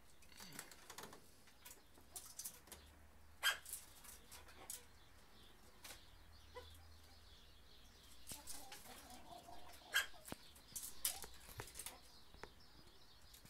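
Red-crested turacos moving about their perches: soft wing flaps and scattered light knocks, with two sharper knocks about three and a half seconds in and again about ten seconds in.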